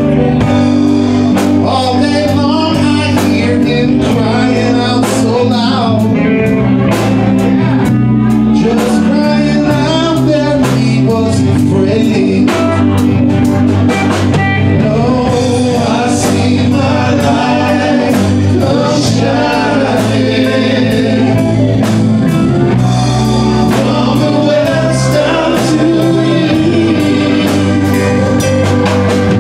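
Live rock band playing a song: drum kit, bass guitar, guitars and keyboard, with men singing over it at a steady, loud level.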